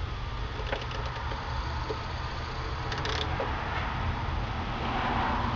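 A screwdriver working in the plastic back of a truck towing-mirror housing, giving a few faint clicks and scrapes, over a steady low rumble.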